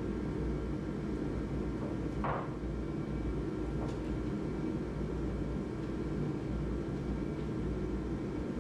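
A steady low hum fills the background. About two seconds in comes one short knock or scrape from framing lumber being handled, with a faint click a little after.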